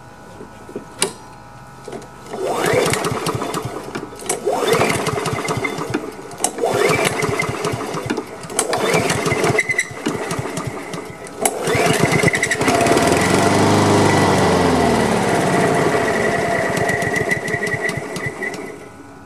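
Honda HRM215 lawn mower's single-cylinder engine being pull-started with the choke on. About four pulls crank it over without it catching. On the next pull it fires and runs steadily for about seven seconds, its speed wavering at first, then cuts out. The engine has just been fitted with a freshly cleaned carburetor that was not primed.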